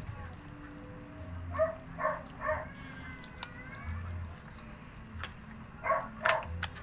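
A dog yipping in short calls, three about a third of the way in and two more near the end, over soft drink being poured into a wok of simmering chicken.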